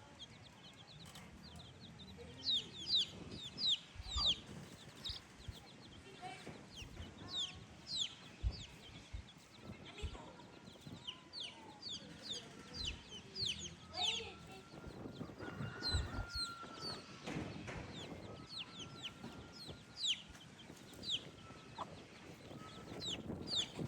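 Chickens cheeping in a steady stream of short, high, falling peeps, many per second, typical of young chicks.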